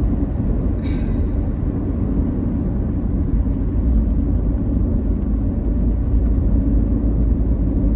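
Car driving along a highway at steady speed: a continuous low rumble of engine and tyre noise.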